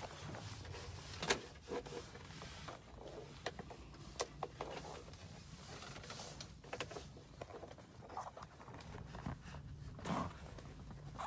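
Rustling and scattered clicks of a phone being handled and a jacket moving, over a steady low hum.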